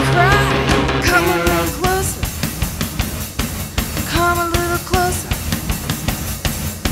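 Indie rock recording. After about a second the dense guitar layers drop away, leaving a thinner passage of steady drum-kit hits with a few held pitched notes.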